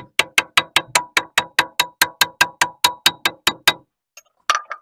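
Rapid hammer blows on steel, about five a second with a metallic ring, for nearly four seconds, then two more strikes near the end.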